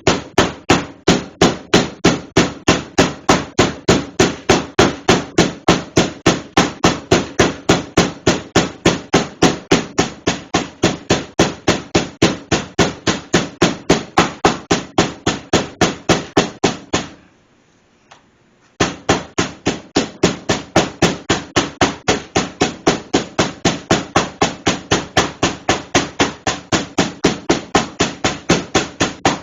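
Meat mallet pounding a piece of pork loin to cube and tenderise it, in a steady run of about three strikes a second. The strikes stop for a second or two about two-thirds of the way through, then carry on.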